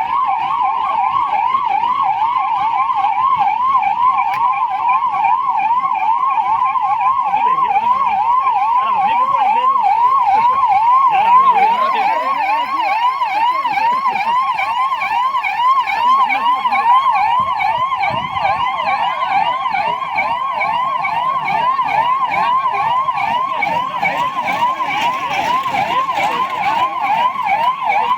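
Emergency vehicle siren sounding a loud, fast-repeating yelp of quick pitch sweeps.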